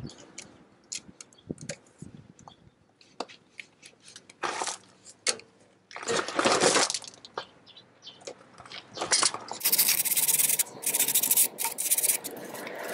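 Steel water-pump pliers clicking and scraping on metal inside the end of a Dana 35 rear axle tube, working at the old axle seal. There are short scattered clicks, a louder scrape about six seconds in, and a choppy run of rasping near the end.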